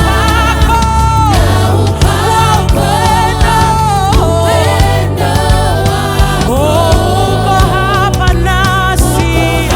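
Gospel worship music: a choir and lead singers singing over a band with bass and a steady beat.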